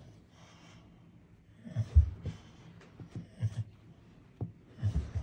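A boxer dog sliding down carpeted stairs on its belly: a string of dull, irregular thumps as its body drops from step to step, the loudest about two seconds in, along with its breathing.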